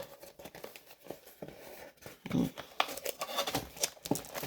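Foil Pokémon booster pack wrapper being torn open and crinkled by hand: a rapid run of small crackles and rustles, a few louder ones about halfway through.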